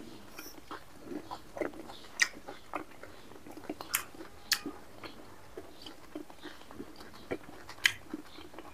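A man eating with his fingers, picked up close by a lapel microphone: quiet chewing and mouth smacks, with scattered short sharp clicks from fingers picking food off a stainless steel plate.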